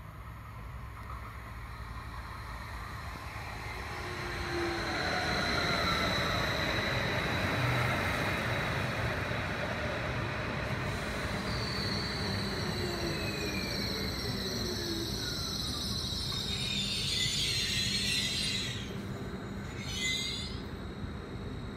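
A Stadler FLIRT 3 electric multiple unit (DB class 1428) pulling in and braking to a stop, with rail and wheel noise. Its drive whine falls slowly in pitch as it slows. Two short bursts of hiss come near the end as it halts.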